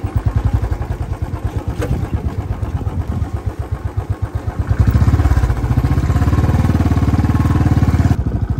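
Royal Enfield Bullet's single-cylinder engine running as the motorcycle rides a rough dirt track, its separate firing pulses plainly heard. About five seconds in it grows louder and steadier.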